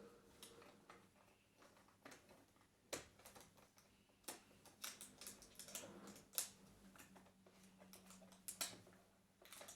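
Faint, irregular clicks and taps of small hard objects being handled or pressed, coming in quick clusters.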